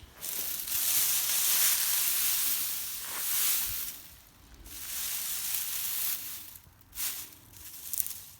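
Dry, cured alfalfa hay rustling and crackling as it is handled and pulled apart, in long swells of crisp noise. The crackly sound is the sign that the hay is dry enough to bale.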